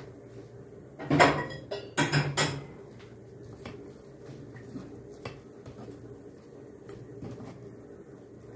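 Metal kitchenware clattering: two short bursts of pot-and-utensil clanks, about a second in and again a second later, the second briefly ringing. A few light clicks follow over a low steady hum.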